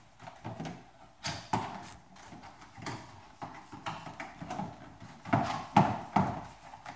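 Rubber weatherstrip seal being pulled off the edge of a Tesla Model S front trunk opening: irregular pops, knocks and rubbing, loudest in a cluster about five to six seconds in.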